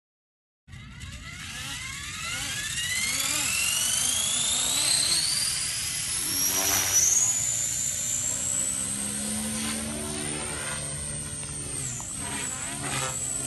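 Electric 450-size RC helicopter spooling up: the high whine of its brushless main and tail motors rises steadily for about five seconds, then holds as it flies, over a low rush of rotor wash. Near the end the whine wobbles up and down in pitch.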